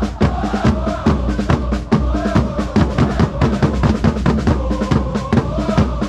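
Supporters' marching bass drums beaten with mallets in a fast, steady beat, under a large football crowd singing a chant in unison.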